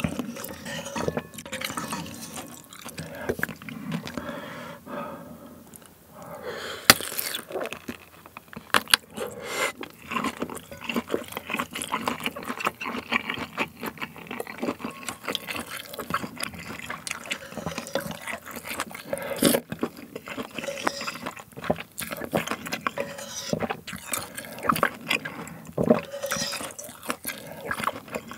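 Close-miked eating sounds: spoonfuls of ramen broth slurped and swallowed, with a spoon scraping and tapping in the bowl as irregular clicks.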